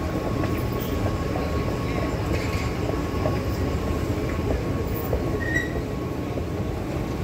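Steady low rumble of metro station ambience with a faint, thin, steady hum above it, unchanging throughout.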